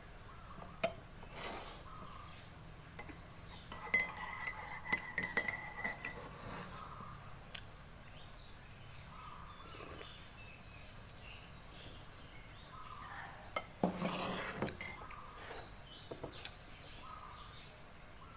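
A ceramic mug, spoon and plate clinking and knocking on a table: scattered sharp clinks about 4 to 5 seconds in and a louder knock around 14 seconds in.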